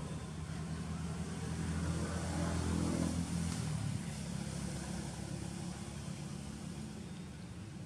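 A motor vehicle's engine passing by: a steady hum that grows louder to a peak about three seconds in, then fades away.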